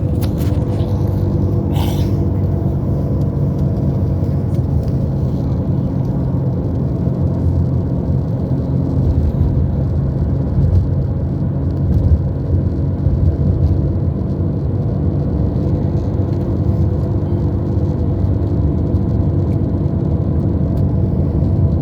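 A steady low rumble with a constant hum of several fixed tones beneath it, unchanging throughout.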